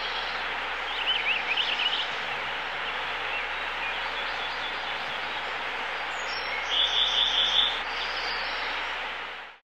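Small songbirds calling over a steady background hiss. A few wavering chirps come about a second in, and a fast, even series of about eight notes comes around seven seconds in.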